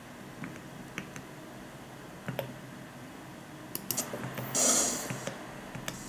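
Scattered clicks of Elgato Stream Deck keys being pressed. About four and a half seconds in, a brief louder burst of hissing noise.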